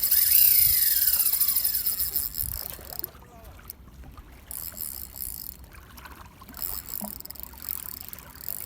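KastKing Sharky III spinning reel's drag buzzing as line is pulled off against it, loud for the first two or three seconds, then stopping and starting in shorter bursts.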